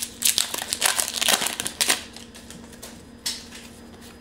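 Foil Pokémon booster pack wrapper being torn open, a rapid run of crinkling crackles for about two seconds, then one short rustle a little after three seconds in.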